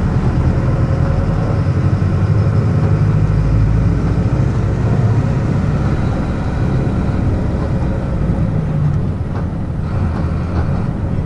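Front-mounted diesel engine of a Mercedes-Benz OF-1722M bus running under way, heard from inside the coach as a steady low drone.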